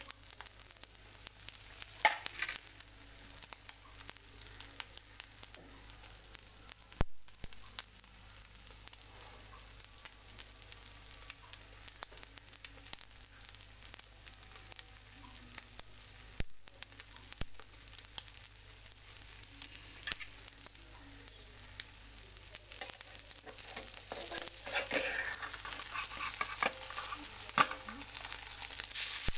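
Egg omelette with chopped tomato, onion and green pepper sizzling in an aluminium frying pan, a steady hiss with scattered small pops and crackles. Near the end a metal spatula scrapes under the omelette in the pan.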